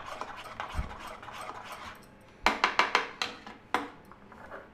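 Spoon stirring thick buckwheat-flour batter in a bowl, a soft wet scraping. About halfway through, a quick run of about six clicks of the spoon against the bowl, and one more click shortly after.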